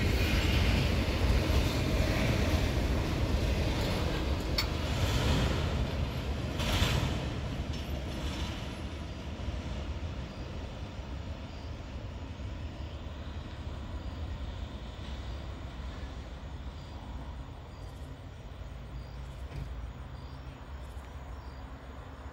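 Double-stack intermodal freight cars rolling past with a heavy rumble and a few sharp clicks from the wheels, fading over the first eight seconds or so. After that a quieter steady low rumble of a distant train approaching.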